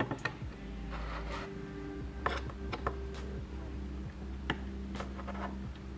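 Steel chisel scraping and picking excess hot glue from the edge of a plastic voltage-converter case: a series of short scrapes and clicks, with a longer scrape about a second in.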